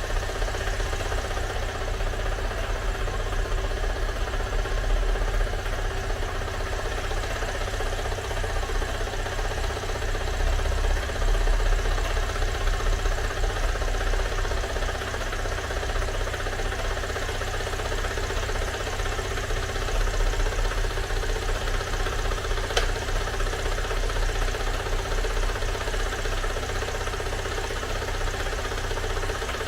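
An engine idling steadily with a fluttering low rumble.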